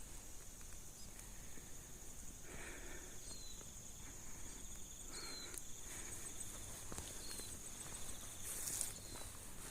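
Faint outdoor bush ambience: insects chirring steadily at a high pitch, with short chirps repeating about once a second. A brief rustle comes near the end.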